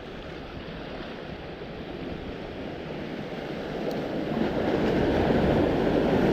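Ocean surf washing against the shore, building to a louder surge about four seconds in.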